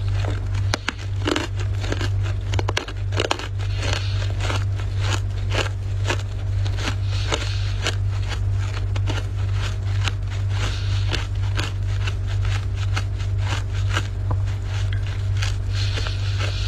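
Dry, flaky freezer frost crunching and crackling in dense, irregular clicks, over a steady low hum.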